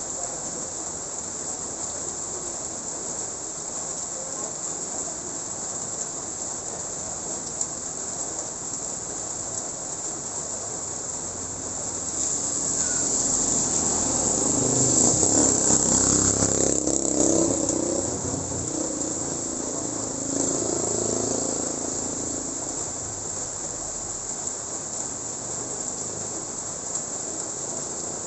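A motorcycle passing along a wet road: its engine and tyre hiss swell up and fade away over several seconds around the middle, followed by a smaller swell. Under it, a steady high-pitched hiss.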